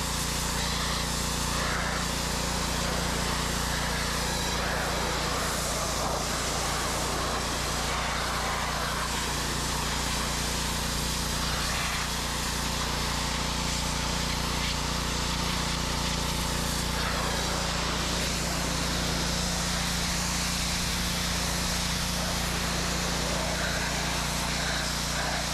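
Simpson 3100 PSI gas pressure washer with its Kohler engine running steadily under load, with the hiss of the high-pressure water jet spraying onto a car's body panels.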